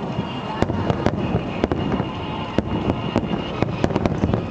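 Aerial fireworks bursting in rapid succession: a dense, irregular series of sharp bangs and cracks over a continuous low rumble.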